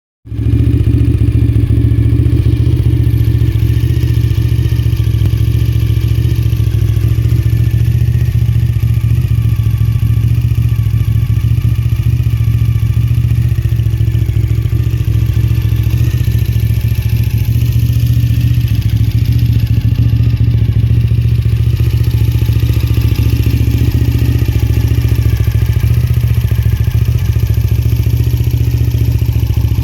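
Suzuki TL1000S motorcycle's 996 cc 90-degree V-twin engine idling at a steady, even pitch, with no revving.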